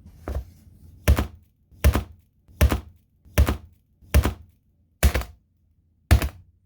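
A tablet being struck hard, eight heavy knocks a little under a second apart, the first one lighter.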